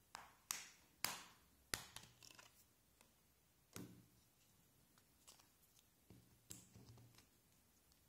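Plastic back cover of a Samsung GT-S5260 phone being prised off, with four sharp snapping clicks in the first two seconds as its clips let go. Softer clicks and taps follow as the battery is lifted out and the phone is handled.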